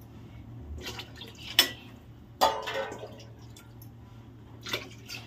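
Water poured into a pressure cooker of rice and minced mutton, splashing in three short pours, with a steady low hum underneath.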